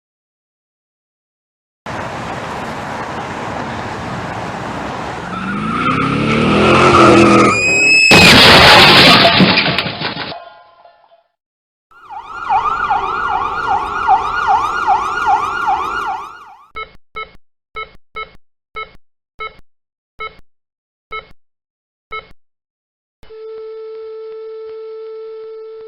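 A staged car crash sound effect: a rising skid and engine noise build for several seconds, then a loud crash about eight seconds in that rings off. A rapidly wavering siren follows, then a string of short electronic beeps that slow down, and near the end a long steady beep like a flatlining heart monitor.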